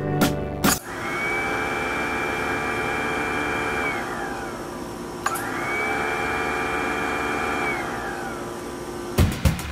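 A wall toggle switch clicks, and a Waste King garbage disposal motor spins up with a steady high whine. It runs about three seconds, then winds down, falling in pitch. It is switched on again with a click and the same whine rises, holds and dies away a second time.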